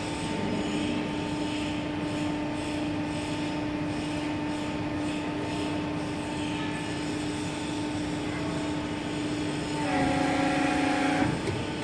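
Hydraulic power unit of a hydraulic guillotine shear, an electric motor driving the hydraulic pump, running with a steady hum. Near the end the hum dips slightly in pitch and grows louder for about a second, then settles back.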